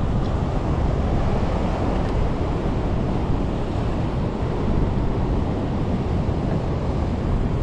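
Ocean surf washing and breaking against a rock ledge, a steady rushing noise, with wind buffeting the microphone.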